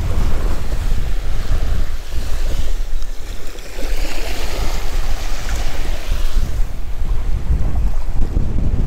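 Wind buffeting the microphone, with small waves washing up on a shell-and-pebble shore; a wash of surf swells and fades about four to six seconds in.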